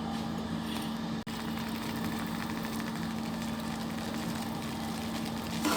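Steady machine-like background hum with a constant pitched tone, dropping out for an instant about a second in.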